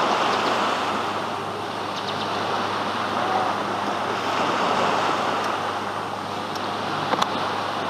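Small surf breaking and washing up on a sandy beach: a steady rushing wash that swells and eases slowly.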